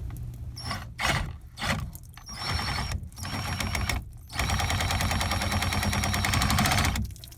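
A small power tool, most likely a saw cutting into the drain pipe, running in a few short bursts and then steadily for about two and a half seconds with a faint high whine, before stopping shortly before the end.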